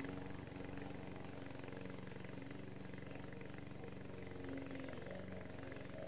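Petrol engine of a Vigorun VTC55090 remote-control tracked mower running at a steady speed, heard faintly at a distance, as the mower works through long wet grass.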